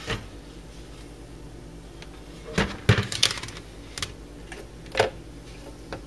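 Plastic bowl topped with a paper plate being handled and slid out over a microwave's glass turntable: a few sharp clicks and knocks, bunched together about halfway through, over a steady low hum.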